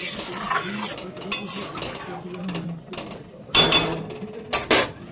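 Metal spatula stirring a watery curry in a metal pot, scraping along the pot as the freshly added water is mixed in. A few louder clatters of metal on metal come about three and a half and four and a half seconds in.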